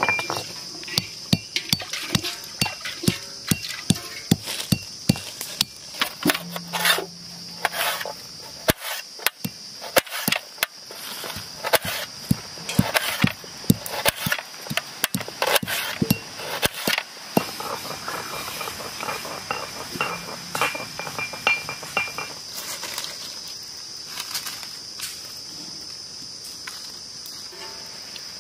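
Knife slicing onion on a steel plate: a long run of quick, irregular sharp taps that thins out in the last few seconds. A steady high insect drone runs underneath.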